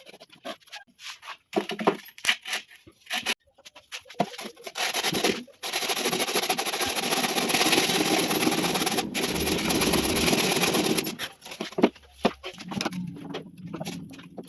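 Scattered knocks and clicks, then a power tool running against material for about five and a half seconds with a short break in the middle, then more knocks.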